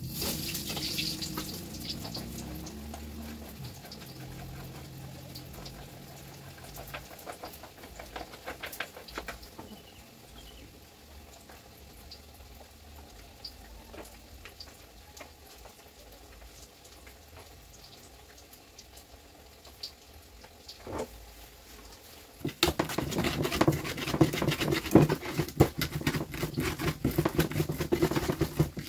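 Stone pestle grinding and crushing shallots, garlic and chili in a stone mortar (Indonesian cobek and ulekan), a rapid rough scraping and knocking that starts about two-thirds of the way in. Before that there are only faint kitchen clicks.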